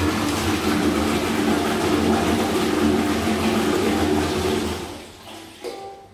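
Exeloo public toilet flushing, set off by the push-plate on the wall: a loud, steady rush of water through the stainless-steel pan that dies away about five seconds in.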